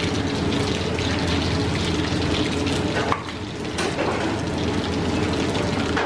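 Cumin seeds (jeera) sizzling and crackling in hot oil in a kadai, over a steady low hum.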